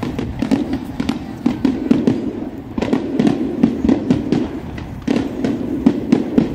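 Fireworks display: rapid runs of sharp cracks and bursts from exploding shells. They come in three waves, each starting every two to three seconds.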